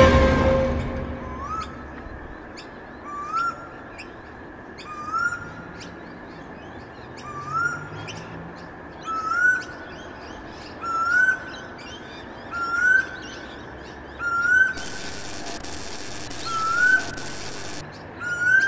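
Birds calling in a nature ambience sound effect: a short rising whistle repeats about every two seconds, over fainter high chirps. A loud chime fades out at the start, and a high hiss runs for about three seconds near the end.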